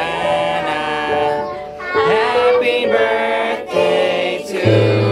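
Music with singing voices over a steady instrumental backing.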